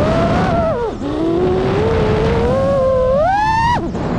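FPV quadcopter's brushless motors and propellers whining with the throttle: the pitch drops sharply as the throttle is chopped about a second in, then climbs steadily to a high whine before dropping sharply again near the end, over a rush of air.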